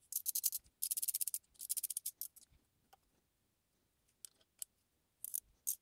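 Ratchet head of a torque wrench clicking in three quick runs, then a few single clicks near the end. The wrench is turning the screw of a valve spring compressor down to compress a valve spring.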